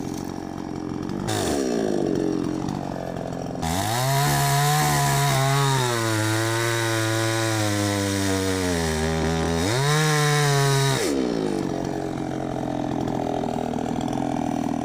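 Chainsaw engine idling, blipped once, then held at full throttle from about four seconds in while cutting a branch, its pitch sagging under load near the end of the cut before it drops back to idle about eleven seconds in.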